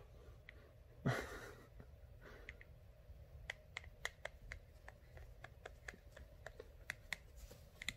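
Fingers scratching and preening the pin feathers on a toucan's head: faint, irregular little clicks and crackles, thickest in the second half, after a brief soft rustle about a second in.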